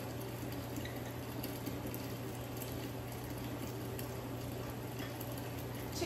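Steady kitchen background noise: an even rush over a constant low hum, with a couple of faint clicks.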